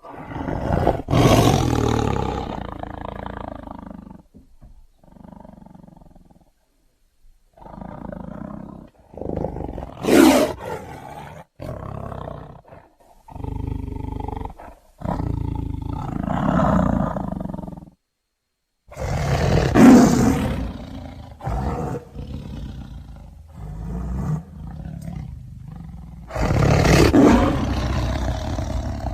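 Tiger roaring: a string of separate rough calls, each a few seconds long, with a few short silent breaks between them.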